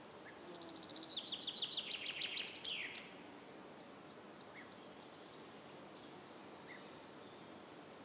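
A songbird singing outdoors: a fast trill of high repeated notes ending in a quick downward sweep, followed by a softer series of repeated high chirps, over a faint steady background hiss.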